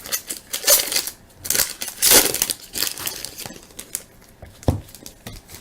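Trading-card pack wrapper crinkling and tearing as it is ripped open, in irregular crackly bursts, the loudest about two seconds in. A short knock near the end.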